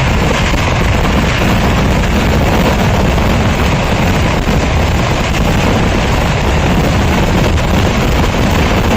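A continuous barrage of Kerala temple-festival firecrackers going off so densely that the bursts run together into one steady, loud din.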